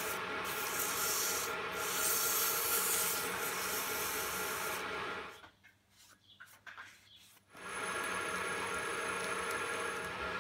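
Metal lathe running with a steady machine hum, while the spinning workpiece is rubbed by hand with an abrasive, making a hissing rasp. Just past the middle the sound drops away to near quiet for about two seconds, then the lathe is running again.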